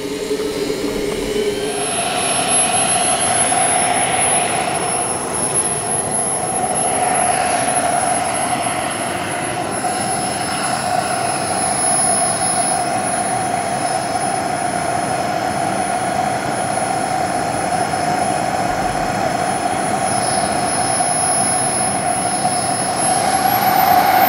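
Fuel-burning turbine engine of a large RC Fouga Magister jet running with a steady high whine after settling to idle about two seconds in, then spooling up near the end, the whine rising in pitch and getting louder, as the jet begins to taxi.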